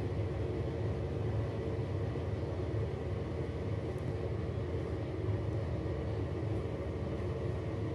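Steady low mechanical hum with a few faint steady tones in it, unchanging throughout.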